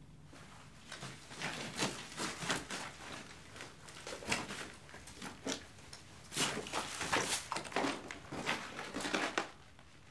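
A person getting up and walking away over broken plaster and rubble: irregular crunching and crackling of debris underfoot, stopping shortly before the end.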